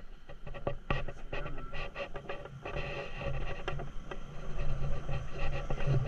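Motor scooter running while riding along a street, its engine a steady low drone with road and wind noise and scattered rattles; the sound jumps up in level right at the start.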